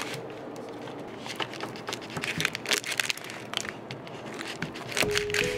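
A knife slicing through a dry salami on its paper-and-plastic wrapper: a run of small crackling, crinkling clicks. Music comes in near the end.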